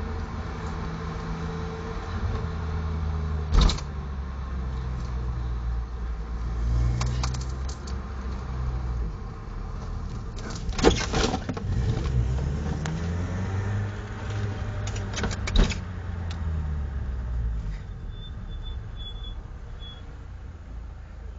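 Zeus sidecar's engine pulling through town, its note rising and falling with acceleration and gear changes, and dropping lower and quieter near the end. Several sharp knocks and rattles cut in, the loudest about 11 seconds in.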